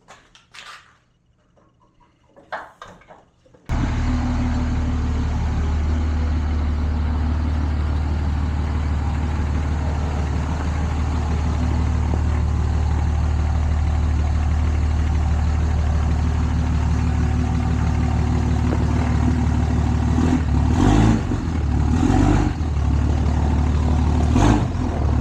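A few faint clicks, then about four seconds in a 3rd-gen Cummins pickup's inline-six turbo diesel starts up abruptly in the sound as a steady low drone of the truck driving, with a few brief louder surges near the end.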